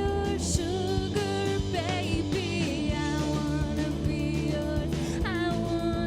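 A pop-punk band playing a song live, with singing over a steady beat.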